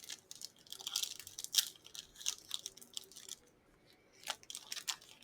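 Plastic wrapper of a Chaotic trading card pack crinkling and tearing as it is opened by hand: a dense run of crackles for about three seconds, a short pause, then a few more near the end.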